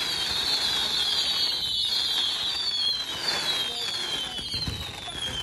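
Aerial fireworks display: many whistling fireworks shrieking at once, their high pitch sliding slowly downward, over a constant crackle and fizz. A couple of low thuds come near the end as the volley tails off.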